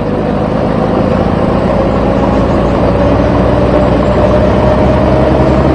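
Truck engine running steadily, its pitch creeping up slightly.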